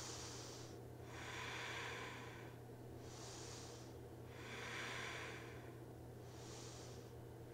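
A woman breathing slowly and audibly, in and out, through about three full breaths: soft hissing in-breaths and out-breaths alternating every second or two, faint, over a steady low hum.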